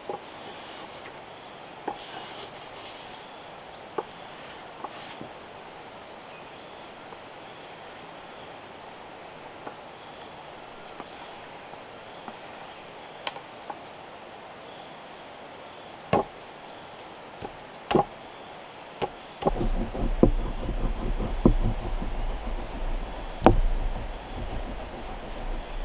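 Scattered knocks and a couple of louder thuds as clay lumps are handled on a wooden plank. About three-quarters of the way in, a wooden rolling pin starts rolling clay flat on the plank: a continuous low rumble with rapid clicks.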